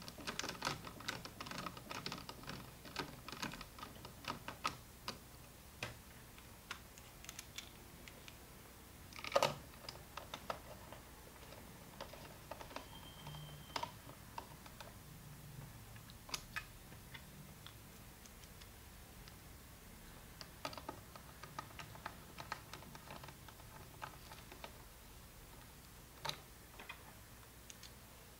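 Phillips screwdriver driving screws into an Em50G data logger's plastic enclosure, with handling of the case: a quick run of small clicks in the first few seconds, then scattered clicks and one louder knock about nine seconds in.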